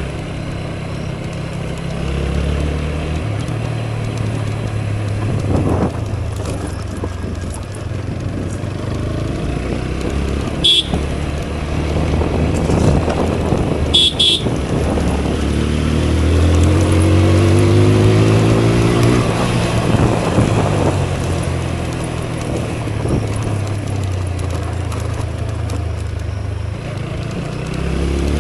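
Motorcycle engine running on the move, speeding up for a few seconds in the second half. A vehicle horn beeps briefly about eleven seconds in and again about fourteen seconds in.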